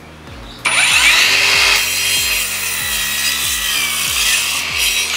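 Akaido AKCS125BL 21V brushless 5-inch cordless circular saw starting up with a rising whine and cutting straight through a block of construction-grade timber, running steadily under load. It stops abruptly right at the end.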